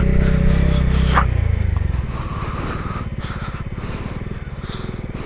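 A two-wheeler's engine running as the ride moves off: loudest for the first couple of seconds, then settling to a lower, steady note.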